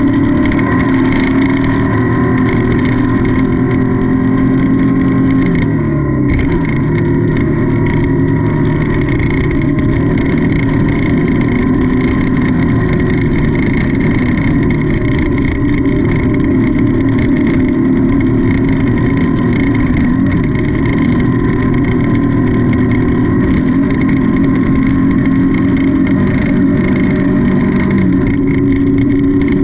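Off-road race car engine running hard under load, heard from on board. The revs drop about six seconds in, then climb again near the end.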